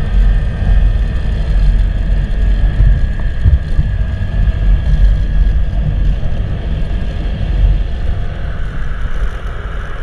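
Motorcycle running along the road, its engine note mixed with a heavy, fluctuating wind rumble on the microphone and a steady faint whine.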